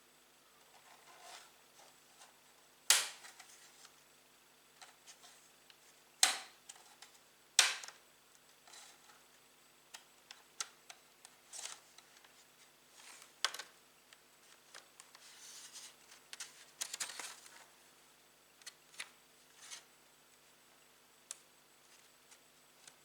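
Scattered small clicks and taps of hands working on a laptop, with three sharp knocks about three, six and seven and a half seconds in, and a brief rustling patch later on.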